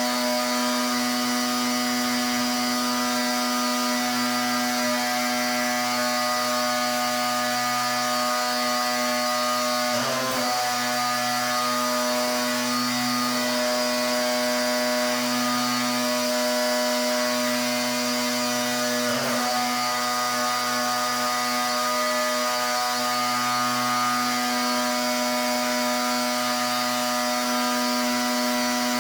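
Pressure washer running steadily, its motor and pump giving a constant, even tone over the hiss of the water jet. The tone dips briefly twice, about ten and nineteen seconds in.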